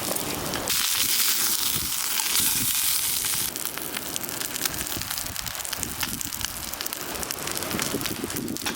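Wood fire crackling with many small pops, under a sizzling hiss that is loudest for the first few seconds.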